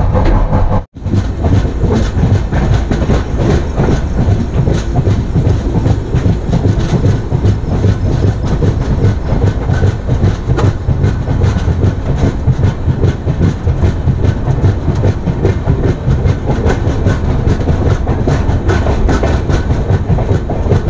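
Express train running along a station platform, its wheels clattering steadily over the rail joints under a continuous low rumble. The sound cuts out for an instant about a second in.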